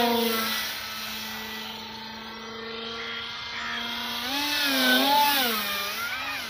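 Electric RC plane's 2212 2200 KV brushless motor and 6-inch propeller buzzing in flight, a steady pitched drone that dips slightly just after the start. From about four seconds in, its pitch swings up and down several times, loudest around five seconds.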